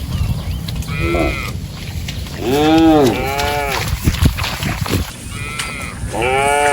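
Cattle mooing: a call rising and falling in pitch about two and a half seconds in, overlapped by a second, and another near the end, over a steady low rumble.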